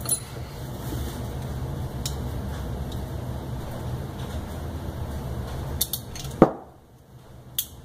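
Single-action revolver being handled with its cylinder out, its action worked: a few faint metallic clicks over a steady low hum, and one sharper, louder click or knock about six and a half seconds in.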